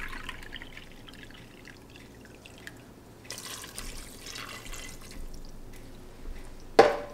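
Beef broth poured from a can into a stainless measuring cup, then poured from the cup into the Instant Pot over dry macaroni, a louder liquid pour about three seconds in. A single sharp metal knock near the end.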